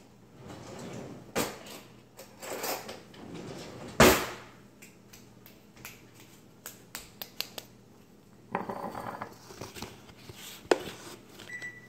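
Spoon scooping chocolate milk powder out of its container: scattered clinks and scraping, with a sharp knock about four seconds in.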